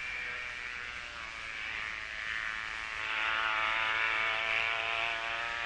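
Motorboat engine running steadily while towing an aquaplane, getting louder about three seconds in.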